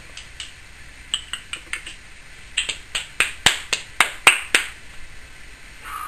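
Timneh African grey parrot clicking: a run of sharp clicks, faint at first, then louder and evenly spaced at about three a second in the second half.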